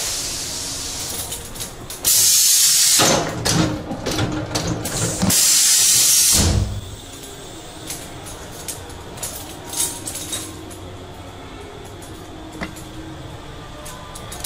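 Two loud bursts of hissing, each one to one and a half seconds long and cutting off abruptly. The second ends in a low thump. Then a quieter steady background with scattered faint clicks.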